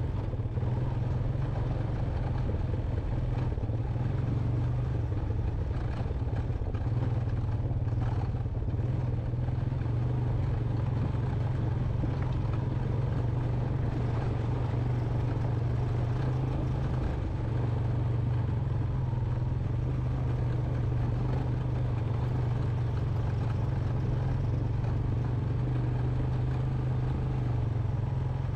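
Honda Recon 250 ATV's single-cylinder four-stroke engine running steadily under way, with clatter from the machine riding over a rough, rocky dirt trail.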